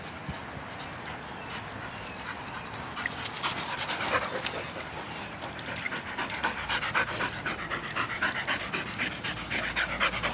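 A dog panting in quick, rhythmic breaths.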